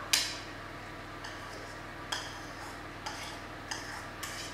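A spoon knocking and scraping against a small bowl as cooked quinoa is spooned out of it. There is one sharp clink right at the start, then lighter taps about once a second.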